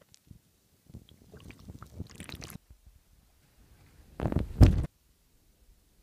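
Seawater sloshing and gurgling against a phone's microphone as it is held under and at the surface, muffled. One loud rush of water lasts under a second, about two-thirds of the way through.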